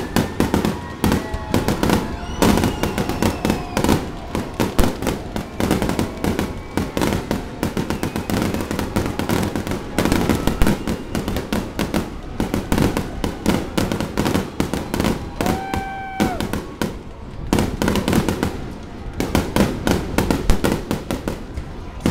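Fireworks display: a dense, unbroken barrage of aerial shells launching and bursting, several sharp bangs and crackles a second.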